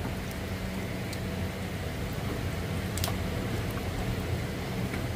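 Steady low hum over a background hiss, with a few small splashes and clicks from a duckling paddling in a shallow plastic tray of water, the clearest about three seconds in.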